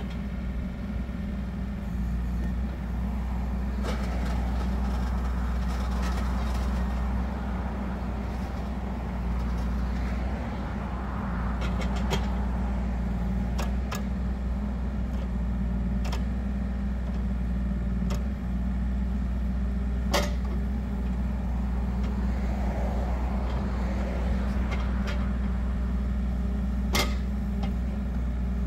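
The 1.6 L three-cylinder diesel of a Wacker Neuson EZ38 mini excavator runs steadily while the boom, arm and bucket are worked hydraulically. The sound swells at times and is broken by a few sharp clanks.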